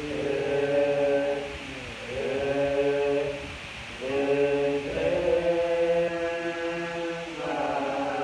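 A group of Buddhist practitioners chanting prayers together in unison, in phrases of a few seconds, each opening with a rising glide in pitch.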